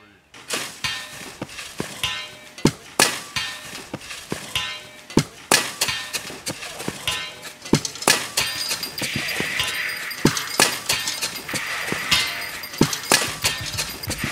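Shovels and mattocks striking and scraping dry dirt and rock in a steady, irregular rhythm of sharp chinks and thuds, roughly one or two a second.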